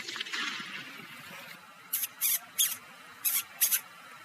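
The tail of a gunshot fades over the first second or so. Then come about six short, high-pitched squeals, a few tenths of a second apart, from an animal that has just been shot at.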